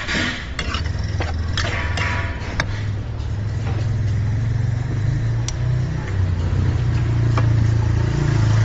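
A motor vehicle's engine idling close by, a steady low hum that grows louder toward the end. A few sharp metal clicks in the first three seconds: a ladle knocking in a wok.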